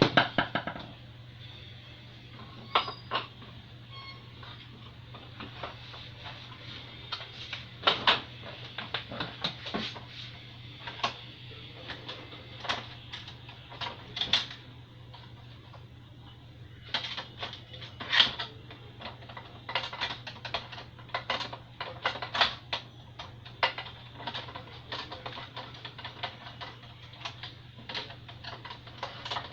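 Irregular clicks and knocks from handling hard parts, over a steady low hum.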